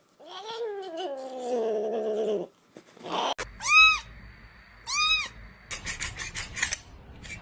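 Cats meowing: one long, low meow that slowly falls in pitch, then two short, high-pitched meows about a second apart, followed by a quick run of clicks.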